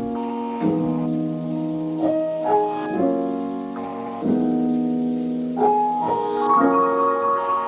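Background music: a soft piano playing slow sustained chords that change about every second or two.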